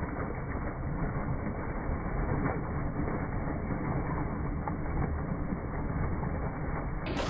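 Water gushing from an irrigation pipe outlet and splashing into a flooded field channel: a steady, heavy rushing with a deep rumble.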